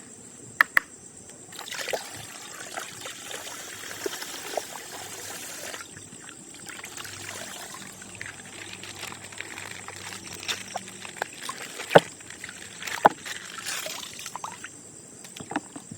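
Coloured water pouring and trickling out of a burst plastic ice-pop bag, heaviest for the first few seconds, then plastic handling with a few sharp crackles and snaps.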